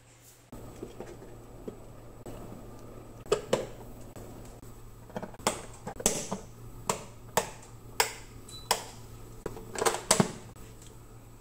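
Plastic wall light switch and its cover plate being snapped back into place by hand: a series of sharp clicks, irregularly spaced, starting about three seconds in and bunching together near the end.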